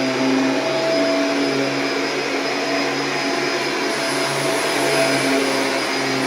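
Kirby G6 upright vacuum running steadily while vacuuming a mattress, its motor hum wavering slightly in pitch.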